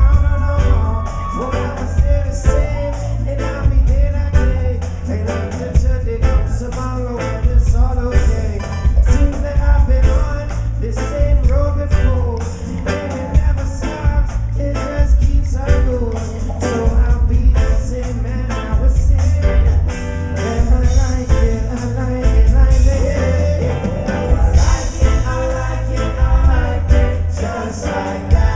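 Live reggae-rock band jamming on stage: electric guitars, bass, drums and percussion with a voice singing over a steady beat. The bass is heavy and loud, as heard from the audience.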